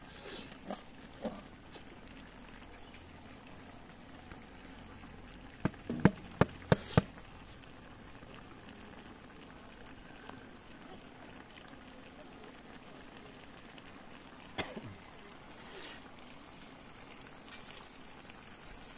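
A faint steady hiss broken by a few sharp knocks or pops: a quick run of about five loud ones around the middle and a single one later on.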